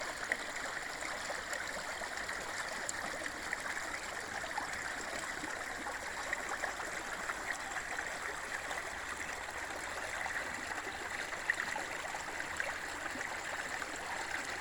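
A small stream flowing, with water babbling steadily over the stream bed and little splashes popping out here and there.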